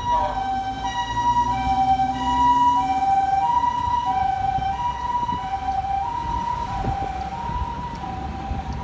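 Japanese ambulance two-tone siren, the hi-lo "pee-po" switching between two pitches about every half second, with a low vehicle rumble underneath. It grows slightly fainter in the second half.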